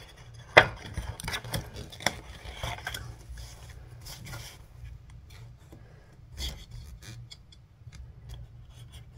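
Snap-off utility knife blade scoring and slicing through thin white card: a series of short scratchy cutting strokes and clicks, the sharpest about half a second in.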